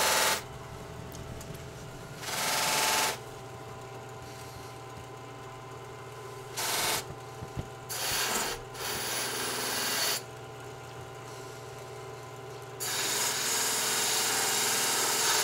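Bench buffer motor running with a steady hum while a straight razor blade is pressed against its spinning buffing wheel about five times. Each contact brings a loud hiss lasting from half a second to about three seconds, the longest near the end.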